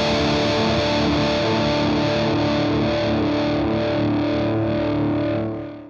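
Electric guitar chord distorted through a Mantic Vitriol distortion pedal, held and ringing steadily after being struck, then fading and cut off near the end.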